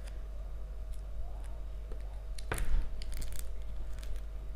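Quiet sounds of a pomelo segment being peeled apart by hand, its membrane tearing, with a sharp click about halfway through and a few fainter ticks, over a steady low hum.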